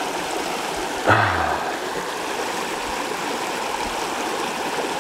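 Creek water running steadily at a low-water culvert bridge, an even rush of flowing water. About a second in, a brief low voice sound.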